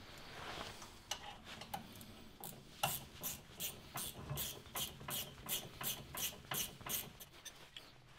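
Light rubbing, then a run of light metallic clicks at about three a second as a greased slide pin is worked back into a Renault Laguna rear brake caliper.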